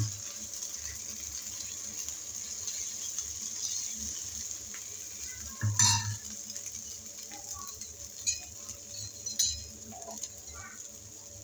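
Egg omelette with chopped onion frying on a hot iron tawa, a steady sizzle, with scattered light clinks of a metal spoon on the pan and one louder knock about six seconds in.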